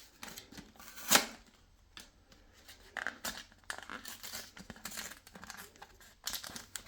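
Pokémon card blister pack packaging being ripped open by hand: a sharp tear about a second in, then irregular crinkling and tearing of the wrapper.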